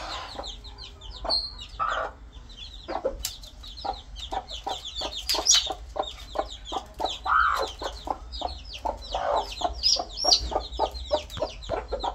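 Sussex bantam chicks peeping continuously in short, high, falling calls, with repeated short clucks from the adult hen and cockerel underneath and a few longer, louder clucks.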